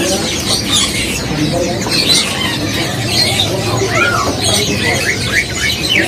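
Many caged songbirds chirping and calling over one another in quick short notes and glides, over a steady low murmur of background voices.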